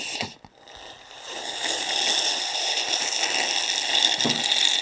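Loud, drawn-out slurping while eating, a steady hissy noise that builds over about a second and then holds.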